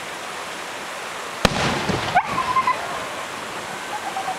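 A firework bursts with a single sharp bang about a second and a half in, followed by a short scatter of crackles, over a steady background hiss. Just after the bang, a short rising whine levels off briefly.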